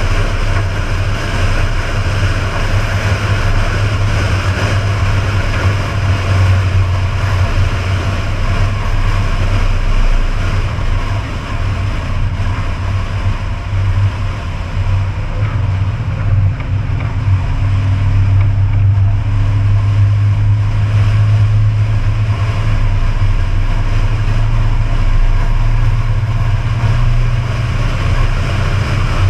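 Steady low rumble of a truck cruising at highway speed, mixed with wind and road noise.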